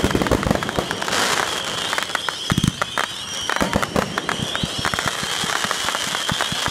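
Aerial fireworks going off in a dense run of rapid crackling pops. Heavier booms land just after the start and again about two and a half seconds in.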